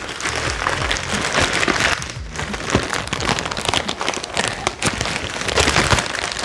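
Plastic courier mailer bag crinkling and rustling as it is pulled and torn open by hand: a dense crackle of many small clicks.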